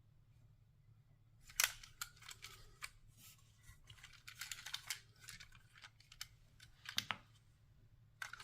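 LEGO puzzle box being handled: light plastic clicks and rattles of bricks and a loose piece being worked with a tool, with sharper clicks about one and a half and seven seconds in.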